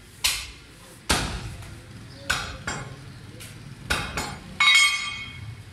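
Butcher's cleaver chopping goat leg on a wooden block: about seven sharp, uneven chops, the last one near the end giving a ringing metallic clang.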